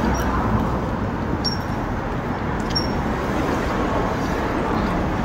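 Steady city street and traffic noise, a constant rush strongest in the low end, with a few faint, short high chirps at intervals.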